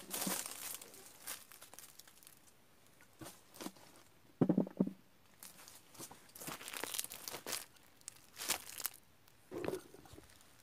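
Dry leaf litter crunching and rustling underfoot and under hand as a person steps about and picks fallen fruit off the ground, in irregular crackling bursts, with a dull thump about halfway through.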